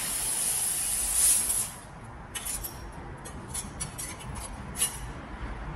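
A 1500 W handheld laser welding torch hissing as it fires at the sheet, the gas rushing from its nozzle for about a second and a half. This is followed by a scatter of short sharp clicks.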